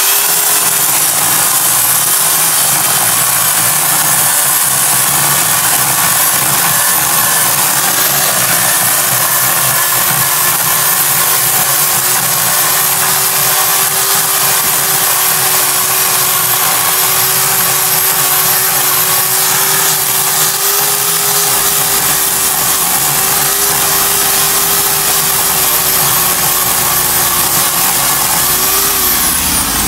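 Craftsman electric chainsaw running at full speed as its chain cuts into a tree stump and its roots, a loud steady motor whine. The motor slows and winds down near the end.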